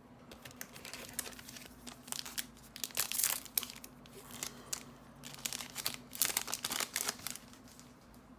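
Foil wrapper of a Magic: The Gathering draft booster pack being torn open and crinkled by hand, in irregular bursts of crackling that are loudest about three seconds in and again around six to seven seconds.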